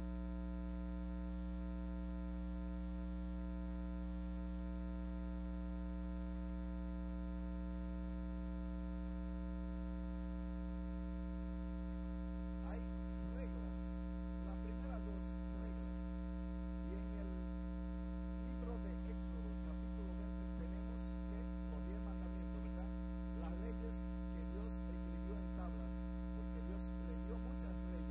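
Steady electrical mains hum in the audio feed, a low buzz with a stack of overtones. From about halfway, a faint voice talking can be heard under the hum.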